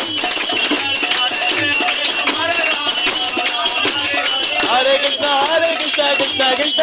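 Harinaam kirtan: a group singing the chant together over a mridanga drum beating about twice a second, with hand clapping and jingling hand percussion.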